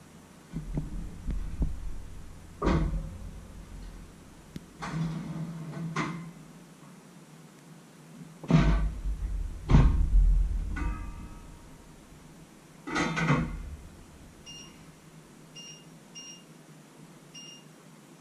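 Kitchen clatter: knocks and clanks of cookware and an oven door being shut, the heaviest thuds about halfway through. Then several short, high electronic beeps from a kitchen appliance, at uneven intervals near the end.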